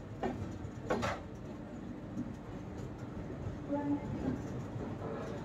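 Express passenger train running, a steady running noise with a few sharp knocks in the first second or so.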